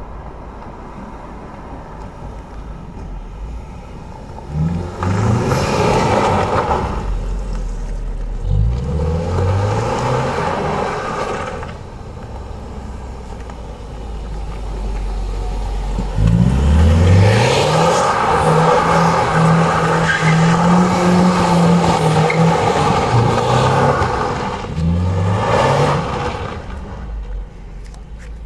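Ford Mustang GT's V8 engine and exhaust under hard acceleration: several pulls where the engine note climbs in pitch, with a long, loud steady stretch about two-thirds of the way through, then fading near the end.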